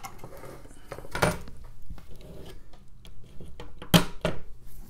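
Handling noise: a few sharp clicks and light knocks as a bare circuit board and its wire bundle are moved about on a desk. The two loudest come about a second in and near the end.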